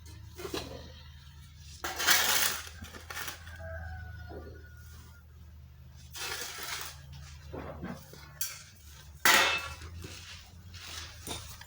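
Containers clattering and scraping in several noisy bursts, the loudest about two, six and nine seconds in, with a steady low hum underneath.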